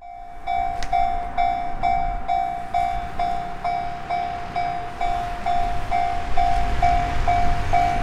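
Japanese railway level-crossing warning bell ringing, a metallic ding repeating about twice a second: the signal that a train is approaching. A low rumble builds underneath towards the end.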